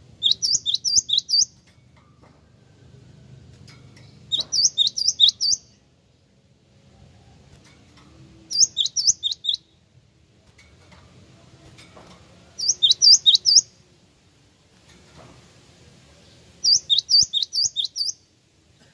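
Cinereous tit (gelatik wingko) singing: five bursts of about six quick, sharply sweeping high notes, each burst lasting about a second and repeated roughly every four seconds.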